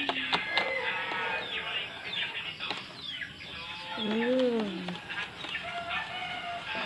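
Wire whisk beating pancake batter in a bowl, clicking against the bowl, with chickens clucking in the background. One drawn-out call rises and falls in pitch about four seconds in and is the loudest sound.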